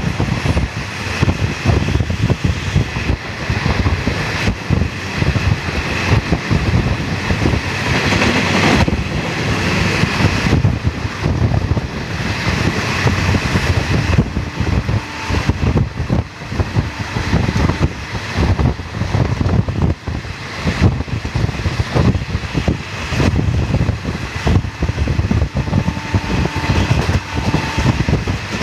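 Passenger express train running through a station at speed, heard from the open coach doorway: a steady rumble of wheels on the rails with rapid clatter, and wind buffeting the microphone.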